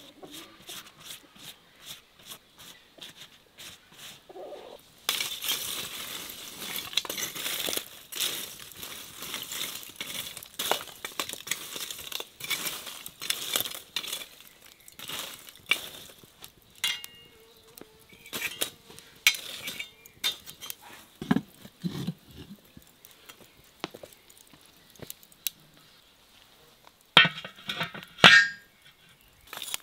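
Metal tongs raking and picking up hot charcoal, with coal pieces clinking and scraping against each other and knocking on the metal pot. There are many short clinks, a denser stretch of scraping early on, and a few sharp knocks near the end.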